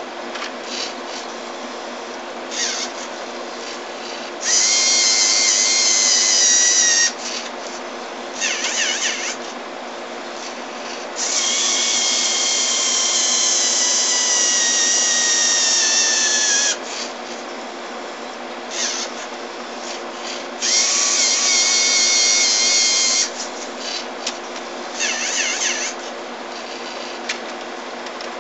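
Electric motors and plastic gear trains of a Lego Mindstorms robot whining in five bursts of one to five seconds each. The longest run sinks slightly in pitch as it goes. A steady low hum runs underneath.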